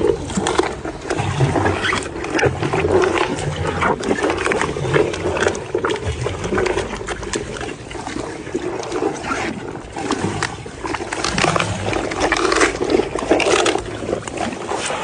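An animal eating: irregular, wet chewing and crunching sounds.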